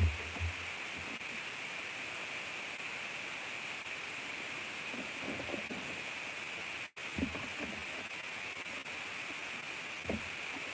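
Steady hiss of background noise with a few faint, short low sounds; the sound drops out completely for an instant about seven seconds in.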